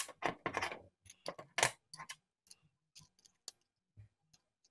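Small chainsaw parts, a steel washer and the clutch drum, clinking and rattling against each other and the bench as they are picked up and handled: a quick cluster of light metallic clicks, then scattered single clinks.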